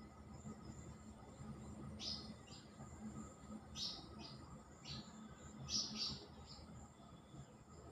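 Small birds chirping in short clusters of two or three quick notes, a few times over several seconds, over a faint steady high drone of insects.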